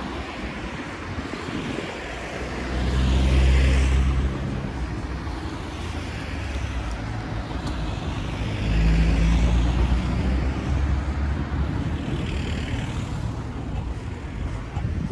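Road traffic: cars passing close by one after another, with tyre and engine noise swelling and fading. The loudest passes come about three seconds in and again about nine seconds in.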